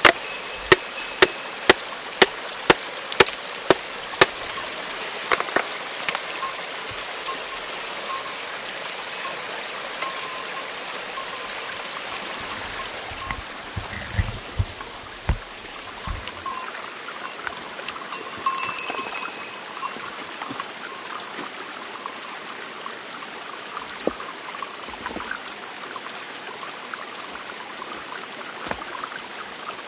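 A stream running steadily, with a hammer striking stone about twice a second for the first four seconds and then only now and then, as rocks are broken open to look for fossils.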